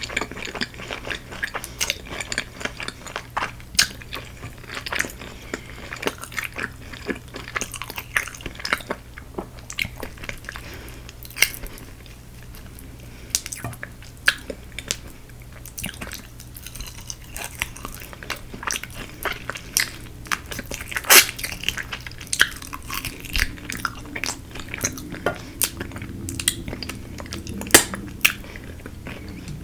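Close-miked crunching and chewing of crispy Korean fried chicken: irregular sharp crunches of the fried coating between bites, the loudest two a little past the middle and near the end.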